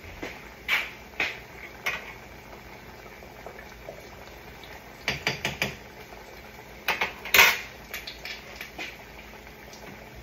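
Metal utensil clinking and clattering against a pot and dishes in short scattered knocks, with a quick cluster about five seconds in and the loudest clanks about seven seconds in.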